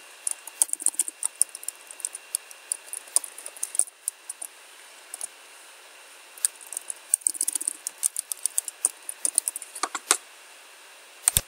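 Computer keyboard typing in short runs of quick keystrokes with pauses between them, then one sharper, heavier click just before the end.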